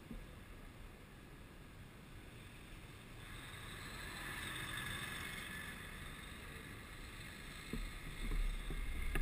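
Faint traffic noise: a truck, a cement mixer, passing close by, swelling about three to five seconds in and then fading. Near the end, low wind rumble on the microphone sets in as the scooter starts to move.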